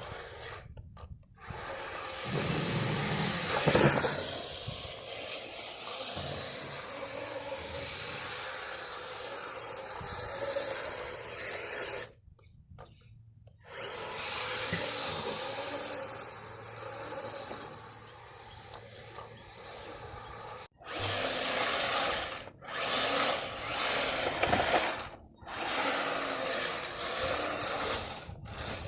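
Kyosho Blizzard 2.0 RC snowcat driving, its tracks rubbing and scraping over the ground with a motor whine that rises and falls, in several stretches broken by abrupt cuts.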